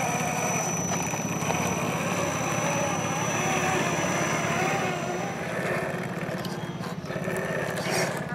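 Electric motor and geared drivetrain of a 1/10-scale RC4WD Trail Finder 2 crawler whining as it crawls slowly over dirt, the pitch wavering with the throttle.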